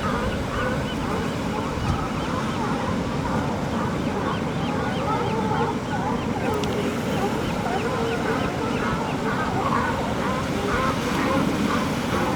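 Many overlapping honking calls from the seabird and sea lion colony on an offshore rock, with a steady wash of surf underneath.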